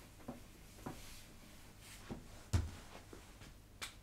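A few faint, scattered clicks and knocks over quiet room tone, the loudest a soft thump about two and a half seconds in.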